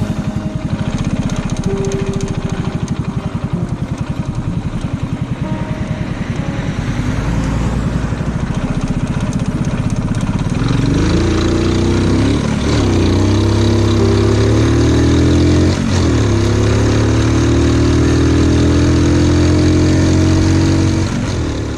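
Honda Super Cub 50 with a 75cc bore-up, its single-cylinder engine running at low revs with each firing pulse distinct, then pulling away and revving up through the gears. The pitch drops and climbs again at each shift, about twelve and a half and sixteen seconds in.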